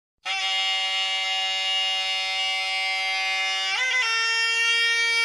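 A reedy wind instrument in an intro jingle holds one long, bright note. About four seconds in it steps up to a higher note with a brief wobble, then holds again.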